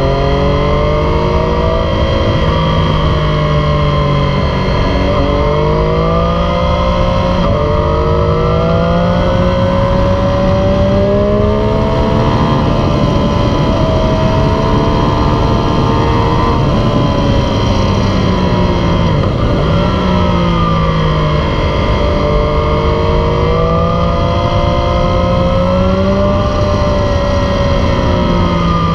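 A 2018 Triumph Street Triple 765 RS's inline three-cylinder engine running through a Yoshimura Alpha T exhaust while riding. The pitch climbs as the bike accelerates and drops each time the throttle eases or it shifts, several times over.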